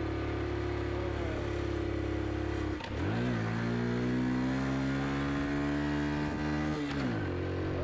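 Honda Super Cub C50's 49 cc four-stroke single-cylinder engine running under load. About three seconds in it is shifted down into first gear: the note dips for a moment, then jumps to a higher pitch that holds and climbs slightly before falling away near the end.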